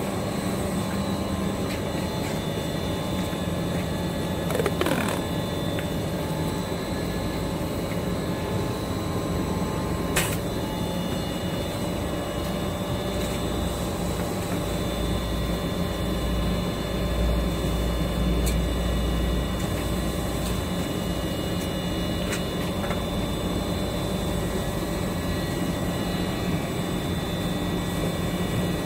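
Plastic filament wrapping machine and the workshop machinery around it running with a steady hum and several steady whining tones, broken by a few sharp clicks and knocks. A deeper rumble swells for a few seconds around the middle.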